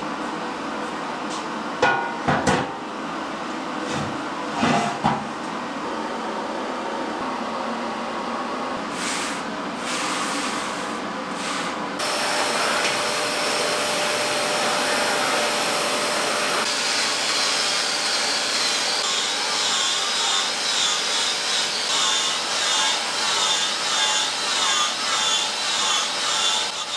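Sledgehammer strikes on a rusty steel square tube, a few sharp knocks in the first five seconds. From about two-thirds of the way in, a cordless Makita angle grinder with a flap disc runs against the tube's steel surface, its whine wavering as it bites.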